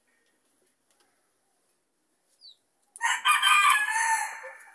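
A bantam rooster crows once, about three seconds in, a single call of about a second and a half that fades out.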